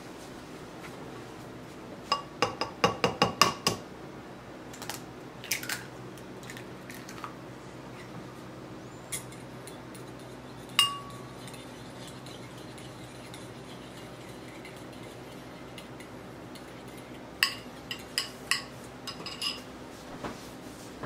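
Metal spoon clinking against a ceramic bowl: a quick run of about eight clinks a couple of seconds in, a few single clinks after, and another cluster near the end, over a low steady hum.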